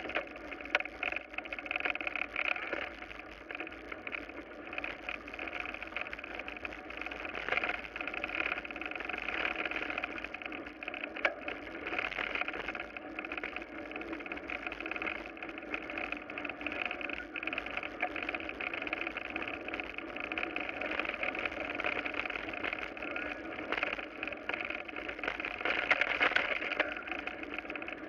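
Bicycle riding fast downhill on a gravel road, heard from a camera mounted on the bike: a steady rush of tyres on loose gravel and wind, with constant small clicks and rattles from the stones and the bike.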